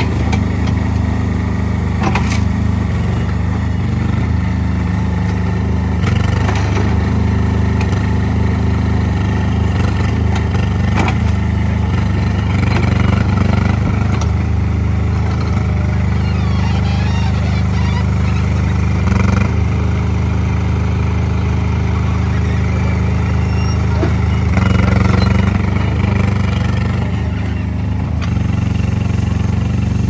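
Small engine of a Worky Quad WX15 compact skid steer loader running steadily, its pitch shifting slightly a few times, with occasional knocks.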